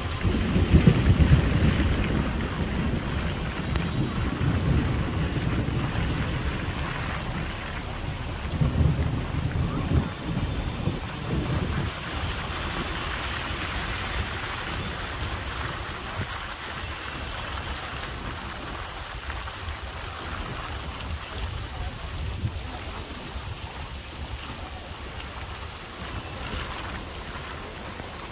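Heavy rain falling as a steady hiss, with low rumbling that is loudest in the first dozen seconds and then fades.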